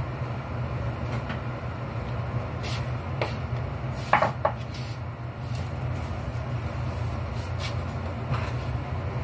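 Steady low hum of a kitchen extractor fan, with a few short clinks and clatters of dishes and kitchenware being handled; the loudest pair comes about four seconds in.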